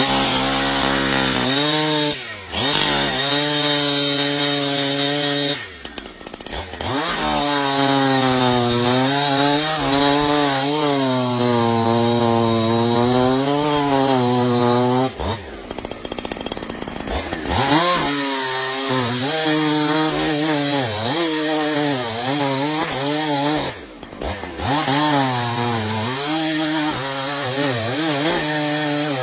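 Two-stroke chainsaw running at high revs and cutting wood, its pitch wavering and sagging under load. The revs fall off briefly four times, around 2, 6, 16 and 24 seconds in, then pick back up.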